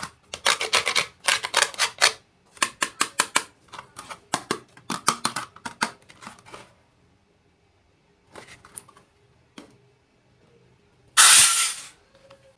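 Small toy kitchen pieces and their packaging being handled during an unboxing: quick runs of clicks, taps and rustles, thinning out after about six seconds. A louder rustling burst, about a second long, comes near the end.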